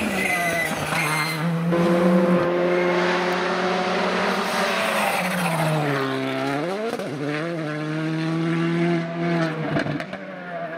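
Škoda Fabia rally cars at full throttle, the engine held at a high, steady pitch. About six seconds in, the revs drop sharply and climb back fast as the car lifts off and accelerates away again. The note falls away near the end.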